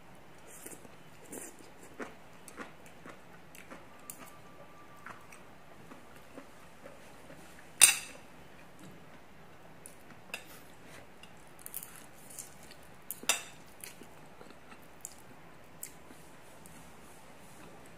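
Close-up eating sounds of fried noodles: slurping and chewing, with metal chopsticks clicking against the plates. Two sharp clicks stand out as the loudest, one near the middle and one about thirteen seconds in.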